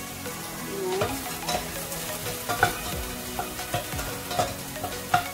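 Shrimp heads sizzling as they fry in hot oil in a stainless steel saucepan, stirred with a wooden spoon that knocks and scrapes against the pan about half a dozen times.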